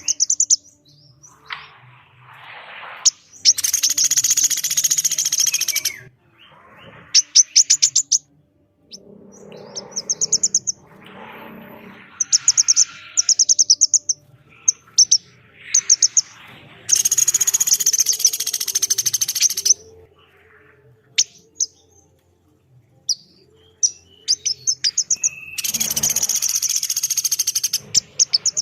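Calls of a small pelatuk beras woodpecker and a female korlap sunbird. Long harsh, buzzy chattering phrases of two to three seconds, three times, alternate with quick runs of sharp high chip notes.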